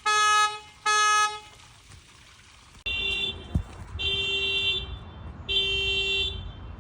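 Car alarms sounding through the car horn: two short honks about a second apart, then, after a pause, a horn with a different tone honks in longer blasts about every second and a half. A single sharp thump comes between the first two of these longer honks.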